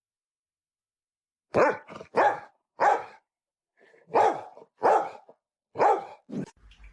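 A dog barking: a run of about seven separate barks, starting about a second and a half in and spaced roughly half a second to a second apart.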